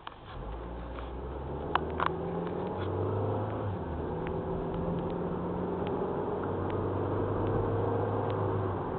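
Car engine and road noise heard from inside the cabin as the car pulls away from a green light and picks up speed, growing louder over the first few seconds, then running steadily. A couple of sharp clicks about two seconds in.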